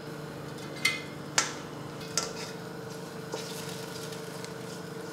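A few sharp clinks of a plate and spatula against a stainless steel pot as spices are tipped in and stirred, over a steady low hum.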